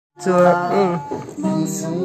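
A woman singing a melody to her own acoustic guitar accompaniment, the song starting abruptly a moment in.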